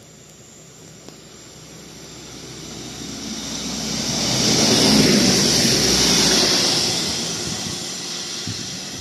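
Koleje Dolnośląskie regional passenger train passing through a station without stopping. The rumble and hiss of its wheels on the rails build up, are loudest about five seconds in, and then fade as it goes away.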